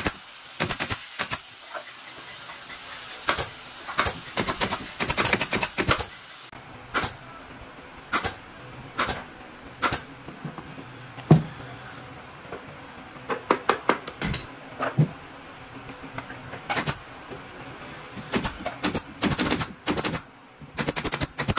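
Pneumatic brad nailer firing, driving brads through wooden trim moulding into a wardrobe frame: sharp cracks in quick runs of several shots, with single shots and pauses between the runs.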